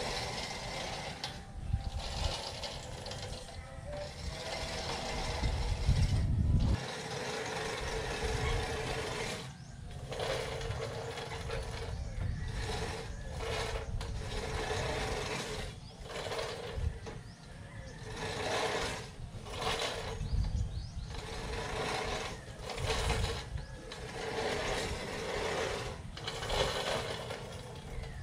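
Manual reel push mower whirring as its spinning cylinder blades cut grass, in repeated pushes a second or two long with short breaks between them. A brief low rumble about six seconds in.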